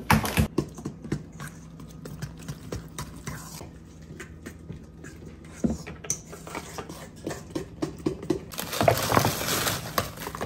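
A utensil stirring cornbread batter in a stainless steel mixing bowl: irregular small clicks and taps against the metal. A louder stretch of noise comes near the end.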